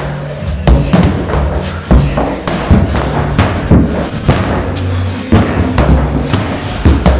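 Sledgehammers striking rubber tires with dull thuds, about two strikes a second at irregular spacing, over background music with a heavy bass line.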